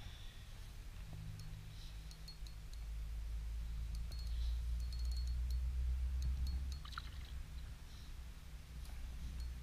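Water splashing and lapping, with scattered light clicks and a low rumble that stops about seven seconds in.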